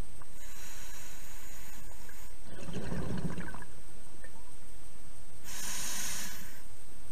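Scuba diver breathing through a regulator underwater: a hissing inhale, then a burst of exhaled bubbles about two and a half seconds in, then another hissing inhale near the end.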